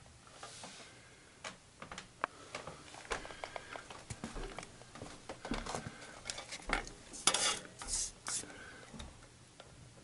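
Irregular small clicks, taps and rubbing scrapes, like handling and movement close to the microphone, with a louder burst of scraping about seven to eight and a half seconds in.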